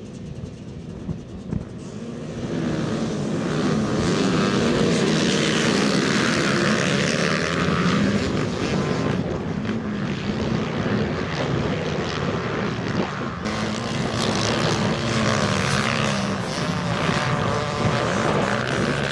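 A pack of motocross bikes' engines revving hard together, the sound swelling sharply about two and a half seconds in and staying loud as the field races.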